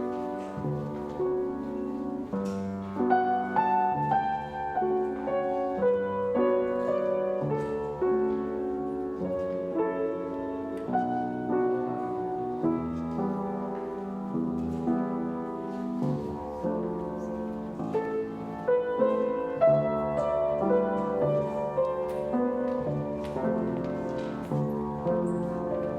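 Piano playing slow instrumental music, held chords and a melody moving from note to note.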